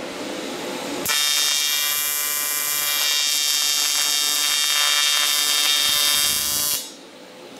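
Primeweld AC TIG welding arc on cast aluminum, laying one tack weld. It is a steady, harsh electric buzz that starts about a second in and cuts off sharply near the end.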